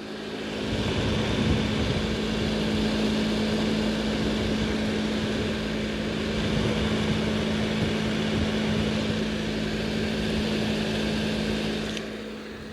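Hair dryer fan running with a steady hum over rushing air. It builds up over about the first second and dies away near the end.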